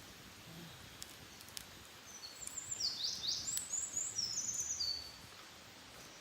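A small wild songbird sings one phrase of quick, high, sliding notes, starting about two seconds in and lasting about three seconds. A few faint sharp clicks sound around it.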